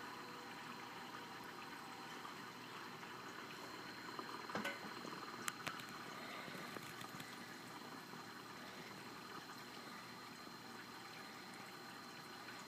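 Aquarium water circulating with a steady rushing hiss and a faint steady high whine, as an EcoTech VorTech MP40w propeller pump runs on the tank. A few brief clicks about four and a half to six seconds in.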